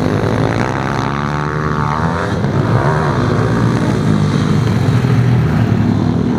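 Pit bike engines, four-stroke singles, running hard in a race, a steady drone with the revs sweeping up and down as bikes come through about one to two seconds in.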